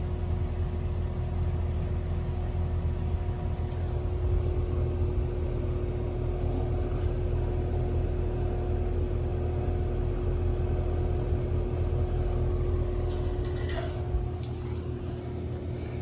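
Carrier Infinity heat pump outdoor unit running with a steady low hum and a constant tone above it. A few faint clicks come near the end.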